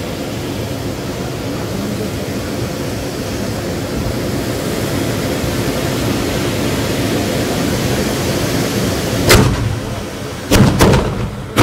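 Hand-held bamboo tube fireworks (tezutsu hanabi) spraying sparks with a loud, steady rushing roar that slowly swells. A sharp bang about nine seconds in, then a few more bangs near the end, as the tubes' bottoms blow out.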